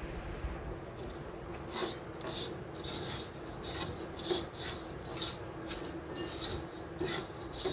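Silicone spatula stirring and scraping small dry pieces of handmade chutki semai around an earthenware clay pot as they dry-roast, in a steady train of short rasping strokes, about two a second.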